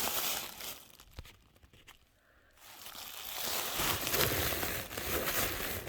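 Packaging crinkling and rustling as it is handled and packed, with small clicks. It goes quiet for about a second and a half starting about a second in, then the rustling picks up again.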